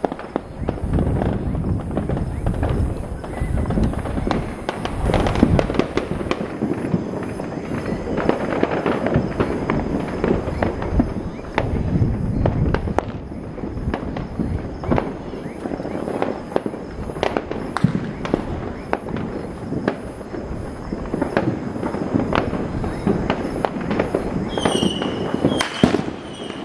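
New Year fireworks and firecrackers going off in a continuous barrage of bangs, booms and crackling with no pause. Near the end a repeating high-pitched chirp joins in.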